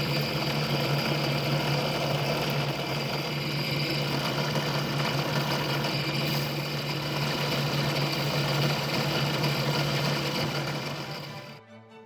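Benchtop drill press motor running steadily, spinning a cast aluminium-bronze part in its chuck while 600-grit sandpaper is held against it. The motor hum fades and stops near the end.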